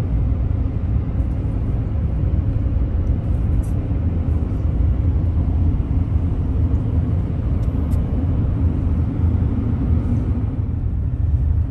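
Steady low rumble of engine and tyre noise inside a vehicle's cabin while cruising at highway speed.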